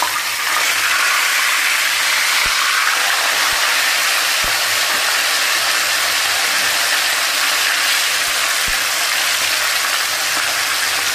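Whole mujair (tilapia) fish deep-frying in hot oil in a wok: a loud, steady sizzle, with a few faint clicks.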